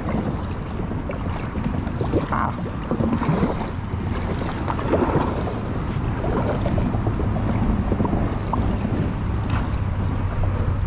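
Kayak paddle strokes splashing in the water at an irregular pace as the kayak is paddled backwards, with wind rumbling on the microphone.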